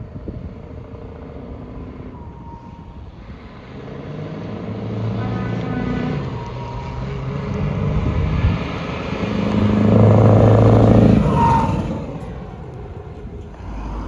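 Heavy truck driving past, its engine sound building from about four seconds in to its loudest around ten seconds, then falling away.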